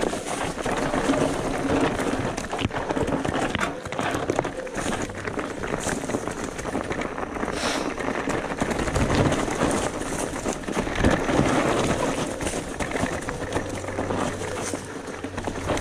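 Electric mountain bike ridden over a rough trail: continuous tyre noise on dirt and stones with frequent rattles and knocks.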